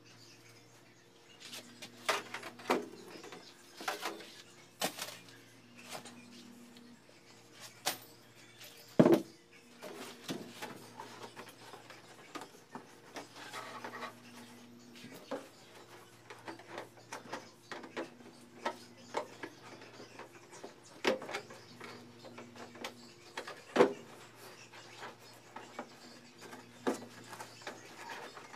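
Thin metal wire being handled and wrapped around a box: scattered clicks, scrapes and knocks, the sharpest about nine seconds in and again near twenty-four seconds.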